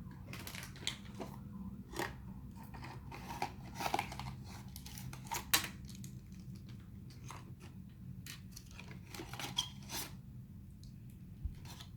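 Toy packaging being opened by hand: irregular crinkling, tearing and clicking of wrapper and box.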